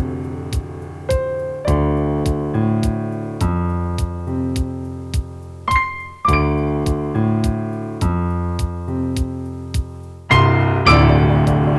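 Instrumental music: held keyboard chords with an electric-piano sound, over a steady ticking beat a little under two a second. The chords change about two seconds in, near the middle, and again near the end.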